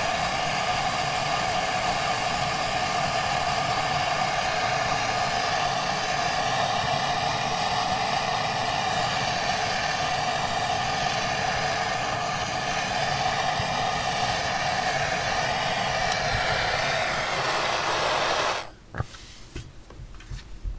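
Handheld gas blowtorch flame hissing steadily as it is held into a pellet stove's burn pot to light the pellets, standing in for the stove's failed igniter. The hiss cuts off suddenly near the end, leaving a few faint clicks.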